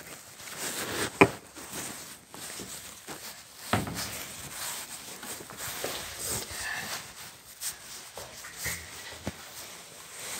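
Handling noise from a phone held in the hand, with rubbing and rustling as it moves, and footsteps. Two sharp knocks stand out, the louder about a second in and another near four seconds.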